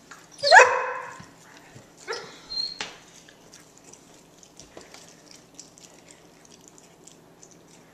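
A dog gives one short, rising bark about half a second in. A few fainter knocks and scuffles follow.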